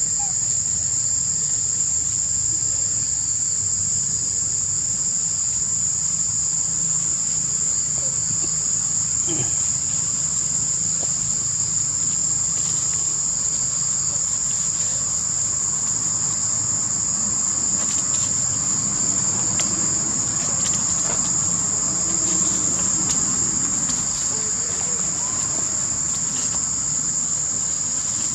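A steady, high-pitched drone of insects, with faint rustles and ticks now and then.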